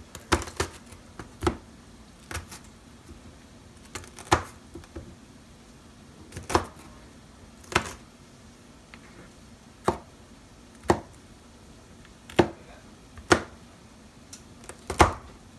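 Chef's knife chopping a green bell pepper on a plastic cutting board: about a dozen sharp knocks of the blade striking the board, unevenly spaced a second or two apart.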